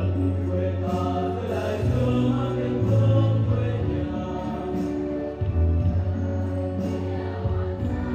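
A group of young voices singing together through a microphone and PA, over backing music with a steady bass line that changes note every couple of seconds.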